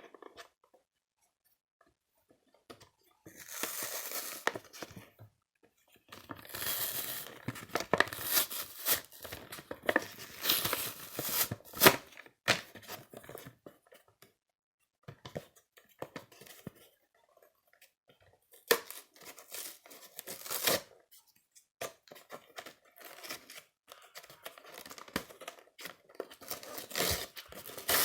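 Toy-figure packaging being torn open and crinkled by hand: bursts of tearing and crackly rustling with short pauses between them.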